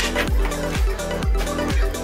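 Electronic background music with a steady kick-drum beat, about two beats a second.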